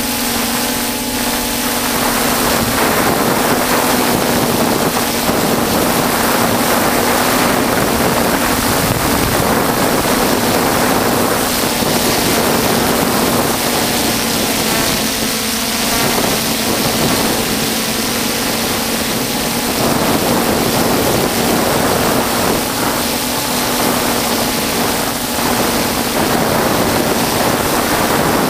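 A camera drone's electric motors and propellers running steadily, heard from its own onboard camera: a constant hum with a rushing noise of prop wash and wind on the microphone.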